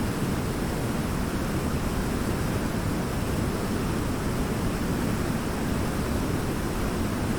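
Waterfall: a steady, even rush of falling water, deepest and strongest in the low range.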